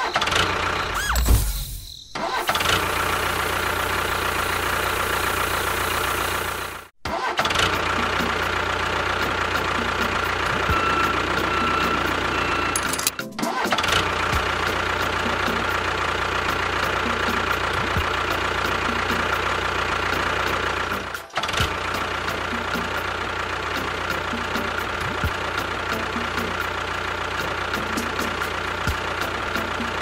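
Tractor engine running steadily. It breaks off sharply three times and picks up again each time.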